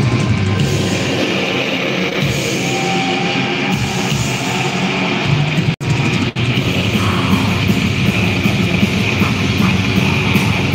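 Live black metal band playing loud: distorted electric guitars over a full drum kit, recorded from the crowd. The sound cuts out twice, very briefly, about six seconds in.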